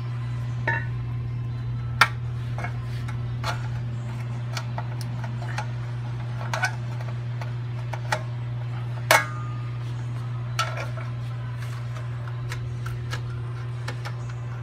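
Hand snips cutting through the thick steel brake dust shield behind a rear wheel hub: sharp metallic clicks and clinks at irregular intervals, the loudest about two and nine seconds in, over a steady low hum.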